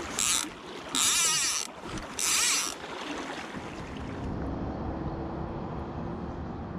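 Steady rushing wash of a fast-flowing river, with three short, loud hissing swishes in the first three seconds.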